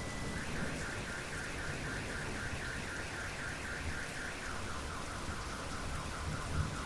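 Steady heavy rain with a car alarm going off, its siren warbling up and down about five times a second and switching to a slightly lower warble about four and a half seconds in.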